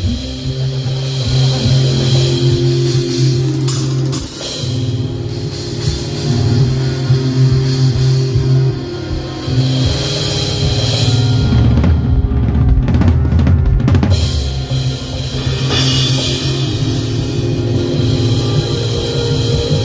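Drum kit played live during a band sound check, with bass drum, snare and cymbal hits over a held low note.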